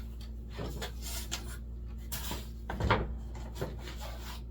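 Foam insulation board and wooden cover parts being handled and fitted together: scattered short rubbing and scraping sounds with light knocks, the loudest about three seconds in.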